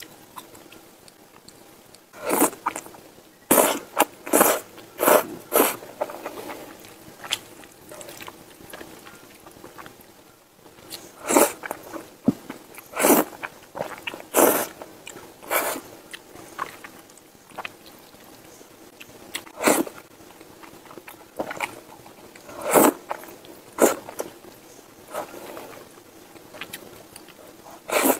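Thick jajangmyeon noodles in black bean sauce being slurped up from chopsticks in short runs of quick slurps, with quieter chewing between the runs.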